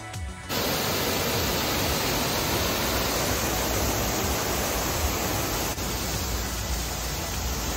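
Steady rushing of water spilling through and down the face of canal lock gates.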